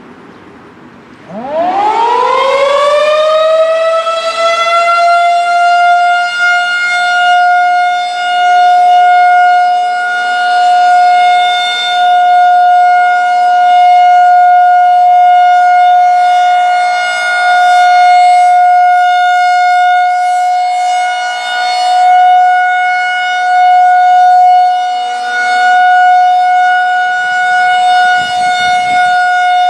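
Federal Signal 2001-130 rotating tornado siren winding up a second or so in, its pitch rising quickly to a high steady tone that it holds for the alert signal of a monthly test. Its loudness swells and fades every few seconds as it rotates. A fainter, lower steady tone joins about eight seconds in.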